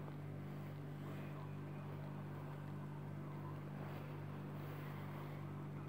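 Steady low hum from a running computer, its cooling fan and drives turning, with no drive seeks or clicks.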